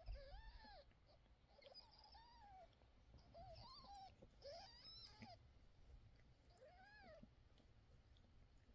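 Newborn kittens mewing: about seven thin, faint cries, each about half a second long and rising then falling in pitch, spread over the first seven seconds. The kittens cry while the mother cat licks them clean.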